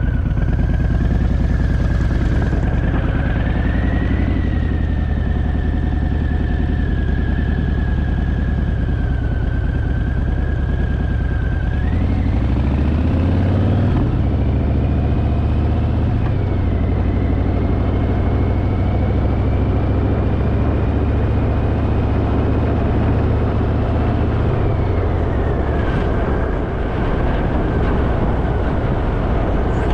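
Harley-Davidson Fat Boy's V-twin engine running steadily while riding, the engine note climbing briefly about halfway through as it picks up speed. A high whine drifts up and down in pitch over the engine.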